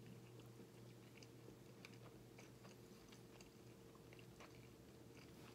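Faint closed-mouth chewing of a bagel sandwich: scattered soft wet mouth clicks, over a steady low hum.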